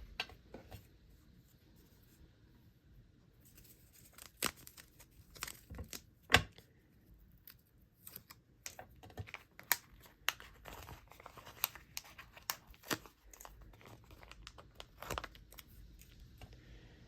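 Adhesive stamp-set pieces being peeled off their backing sheet and pressed into a plastic stamp case: light peeling and crinkling with scattered clicks and taps, the sharpest about six seconds in.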